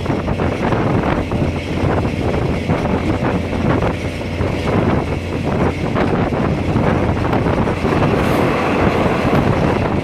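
Thai diesel railcar in motion, heard from inside a third-class carriage: steady running noise over a low engine hum, with the wheels clattering on the rails.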